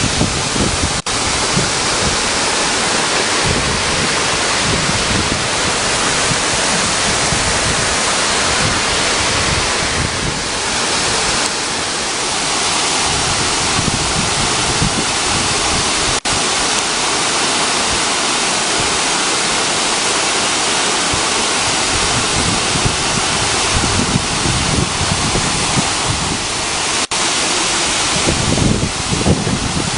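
Waterfall pouring: a loud, steady rush of falling water, broken by three momentary dropouts.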